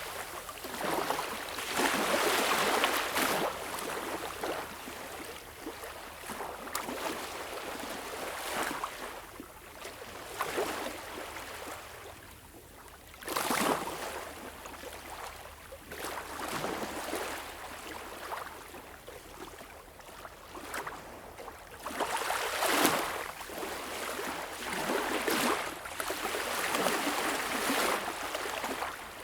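Gentle ocean waves lapping onto a beach shore: small waves rise into a splashing wash and fade, a few seconds apart, with a quieter spell near the middle and a louder wave about two-thirds of the way in.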